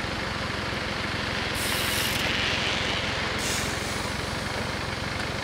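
Level-crossing warning bells ringing with a fast, steady clatter. Two short hisses come about one and a half and three and a half seconds in.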